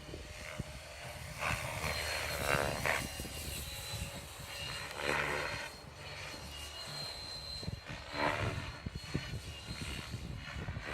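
Align T-Rex 550X electric RC helicopter in flight: its rotor swells in loud whooshing surges about four times as it manoeuvres, over a steady high whine. Wind rumbles on the microphone underneath.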